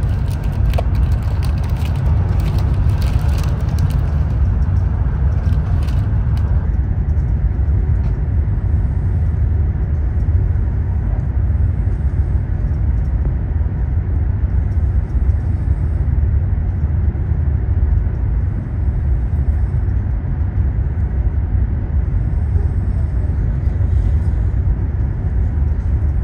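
Steady low rumble of a Fuxing high-speed train running at speed, heard from inside the passenger car. For about the first six seconds a plastic wrapper crinkles as a cookie is taken out of its packet.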